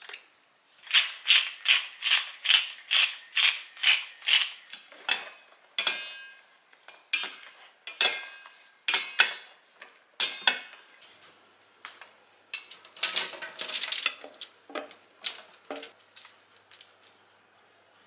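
Wooden salt and pepper mill being twisted, about nine quick grinding strokes in a row. This is followed by irregular scrapes and clatters as sliced mushrooms are tossed in a stainless steel bowl with a wooden spatula.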